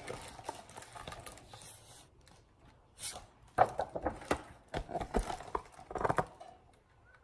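A hardcover picture book being handled: a run of soft knocks, taps and paper rustles as it is moved and held up close, starting about three seconds in.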